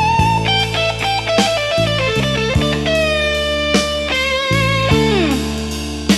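Slow blues instrumental: an electric guitar plays a lead solo with string bends and a slide down in pitch near the end, over a bass line and a backing band.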